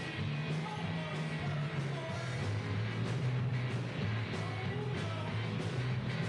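Live stoner/alternative rock band playing, with a heavy, steady bass line under guitars and drums.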